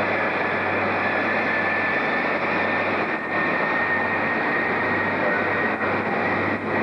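InterCity passenger train moving slowly along a platform: a steady run of train noise with a low hum and a thin high whine throughout.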